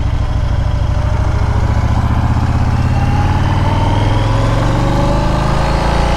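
Motorcycle engine pulling away from low speed, its note rising steadily as it accelerates through the second half.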